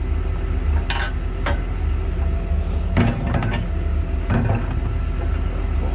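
Sharp metal clanks and clinks, a few scattered knocks with a short cluster about three seconds in, over the steady hum of a heavy engine running at idle.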